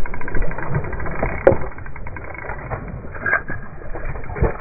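Muffled rustling of clothing and snow as a kneeling person moves, with a few soft knocks about a second and a half, three seconds and four and a half seconds in.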